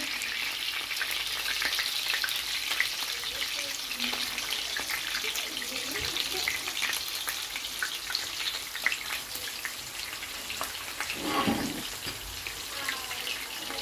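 Oil sizzling and crackling steadily in a frying pan as minced-meat kebabs shallow-fry, with raw kebabs being laid into the hot oil midway.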